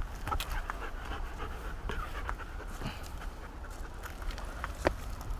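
German Shepherd panting steadily while walking, with footsteps and small crackles on a dry, leaf-littered trail.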